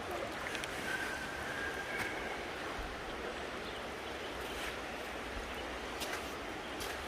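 River water flowing with a steady rush, with a few light clicks here and there.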